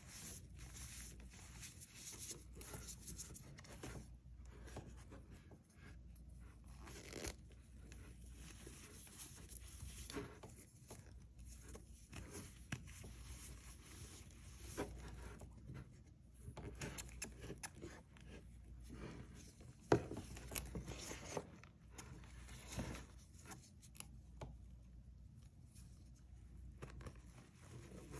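Hands crushing and squeezing soft reformed cornstarch chalk: an irregular run of soft crunches and squeaky, crackling rasps as the powdery chunks give way, with one sharper crack about two-thirds of the way through.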